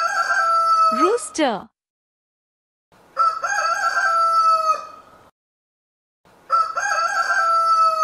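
Rooster crowing three times, each cock-a-doodle-doo about two seconds long, with a broken, warbling start and a long held final note.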